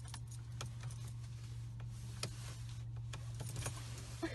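Steady low hum of a car heard from inside the cabin, with scattered light clicks and ticks over it.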